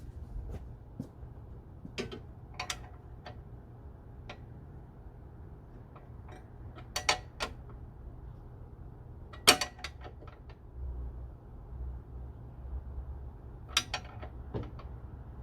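Metal hand tools and loose parts clinking and clicking now and then, with a handful of sharp knocks, the loudest about halfway through, over a low steady hum.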